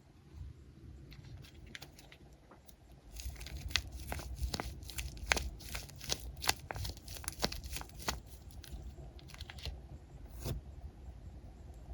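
Squishy toys being handled and squeezed: a run of short crinkling and clicking sounds that starts about three seconds in, thins out after about eight seconds, and ends with scattered ticks.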